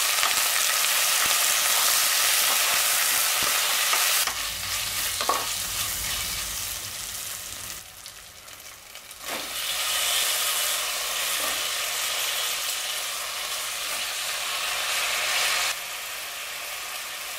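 Food sizzling as it fries in hot oil in a pan while being stirred, with a few knocks of the spoon against the pan. The sizzle dies down for a moment about eight seconds in, then picks up again.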